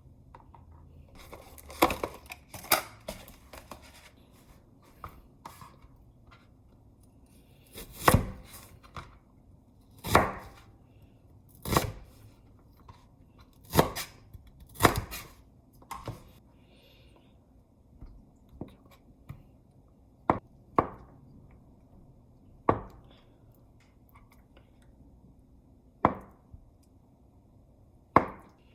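Knife cutting food on a cutting board: sharp, separate knocks a second or two apart, some in quick pairs, with fainter taps between.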